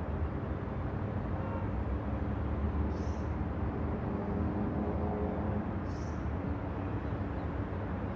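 Road traffic ambience: a steady rumble of engines and passing vehicles, with two short high bird chirps, about three seconds in and again about six seconds in.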